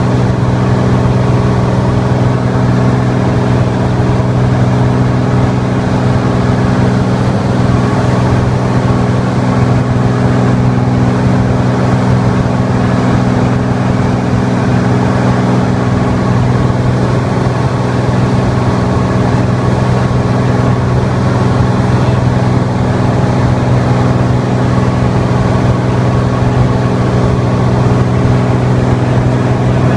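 Light aircraft's engine and propeller droning steadily in cruise flight, heard inside the cabin as a constant low hum with steady rushing noise.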